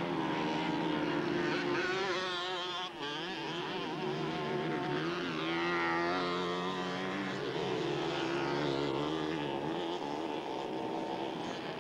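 Small dirt bike engines racing, the pitch wavering up and down as the riders rev and shift, with the sound climbing in pitch twice.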